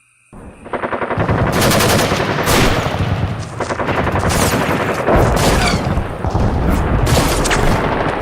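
A rapid, unbroken run of sharp bangs like machine-gun fire, starting about a third of a second in and going on without a pause.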